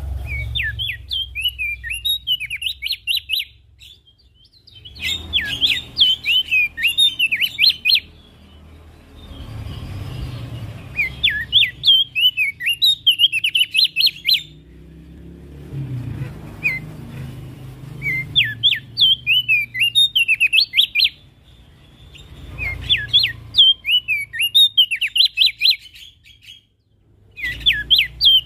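Opior jambul (Javan grey-throated white-eye) singing loudly in repeated bouts of fast, chattering notes, each bout about three seconds long with short pauses between.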